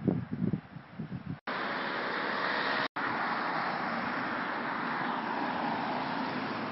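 Wind buffeting the microphone for about the first second and a half. Then, after abrupt cuts, a steady rush of road traffic noise with a car going by close.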